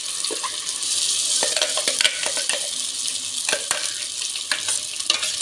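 Oil sizzling as brinjals fry in a pressure cooker. Irregular clicks and scrapes come from a spatula pushing ground masala paste out of a mixer jar into the pan.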